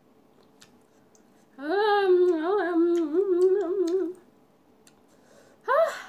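A woman humming a closed-mouth, wavering 'mmm' for about two and a half seconds while eating, then a short rising hum near the end. Faint mouth clicks are heard between them.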